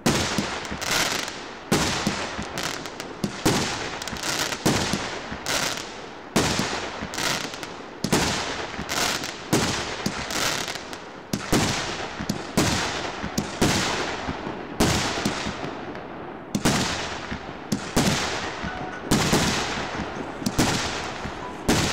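A 1.5-inch consumer firework cake firing shells one after another, roughly one a second. Each shot is a sharp bang followed by a fading tail.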